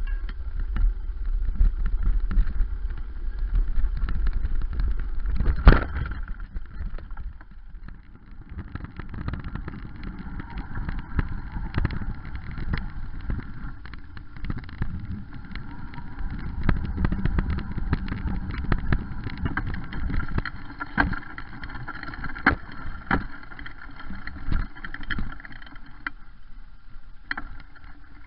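Mountain bike ridden fast over dirt, gravel and sandy tracks, heard from a camera mounted on the bike: tyre noise and frequent knocks and rattles from the bike over rough ground. Heavy wind rumble on the microphone in the first few seconds, and one loud knock about six seconds in.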